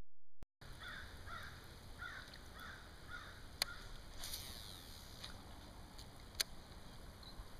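A bird calling about six times in quick succession, then two sharp clicks a few seconds apart.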